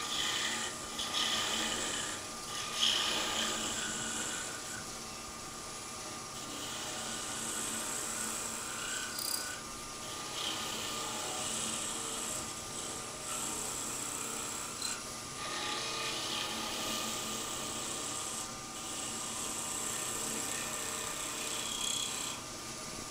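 Wood lathe running, with a chisel shaving a thin spindle finial in short cutting passes: an intermittent hiss of wood being cut over the steady hum of the lathe.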